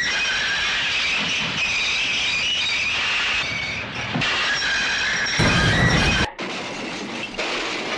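Train wheels squealing under braking, steel on steel with several steady high tones. The squeal breaks off about four seconds in and starts again, swells with a heavy low rumble and cuts off sharply about six seconds in, followed by a quieter noisy sound.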